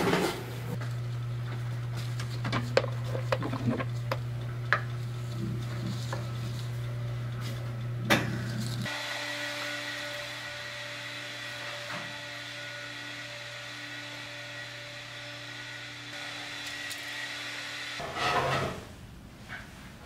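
Plastic rolling pin rolling cookie dough flat on a wooden cutting board: soft rubbing with scattered light knocks of the pin on the board. A steady low hum from kitchen equipment runs underneath and changes pitch about nine seconds in.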